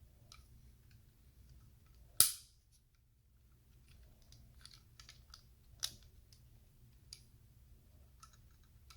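Plastic LEGO Technic pieces being handled and pushed together: scattered small clicks, with a sharp snap about two seconds in and another near six seconds.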